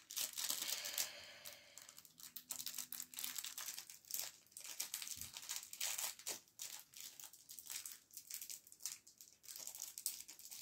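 Plastic packaging crinkling and tearing in irregular crackles as it is pulled open by hand, without scissors.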